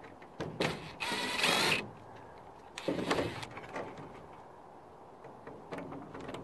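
Cordless DeWalt drill running in two short bursts, backing small screws out of the roof. The first burst runs about a second, from half a second in; the second is shorter, around three seconds in.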